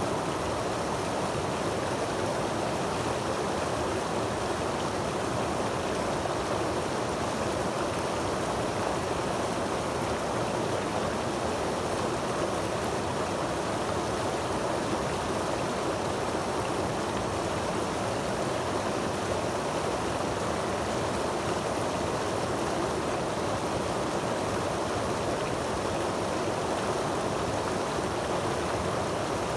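Creek water rushing down a small cascade between rocks and churning into a pool: a steady, unbroken rush.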